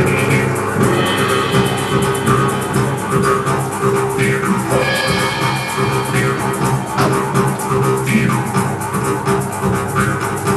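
Jaw harps played together: a steady buzzing drone, plucked in a fast rhythm, with its ringing overtones sweeping up and down as the players reshape their mouths.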